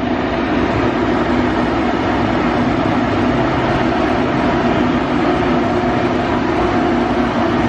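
A steady, loud mechanical hum and drone with a few held tones, unchanging throughout.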